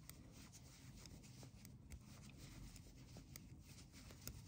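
Near silence, with faint clicks and rubbing from knitting needles and yarn as stitches are purled.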